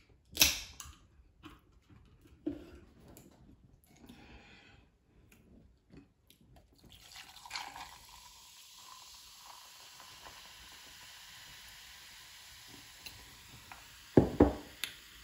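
Coca-Cola fizzing after being poured, a steady hiss of bubbles from about halfway through. Before it come a sharp click and a few light knocks, and near the end a louder knock.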